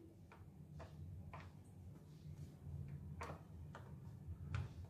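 Faint, irregular small ticks as pieces of candied tutti frutti are dropped by hand into a plastic tub, over a low steady hum.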